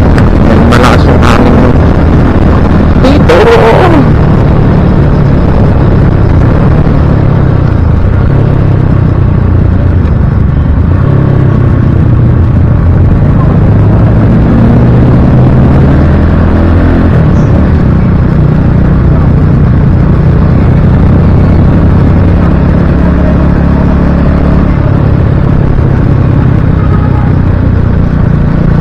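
Motorcycle engine running under way, its pitch rising and falling through the middle, with wind rushing over a helmet-mounted action-camera microphone under the helmet's chin. A few sharp crackles come in the first few seconds.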